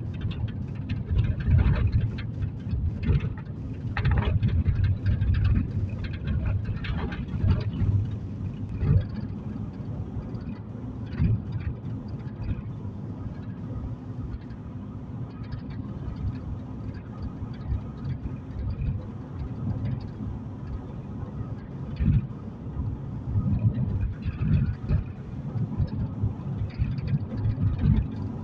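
Low road and engine rumble heard from inside a moving car's cabin, with irregular bumps and knocks from the road surface.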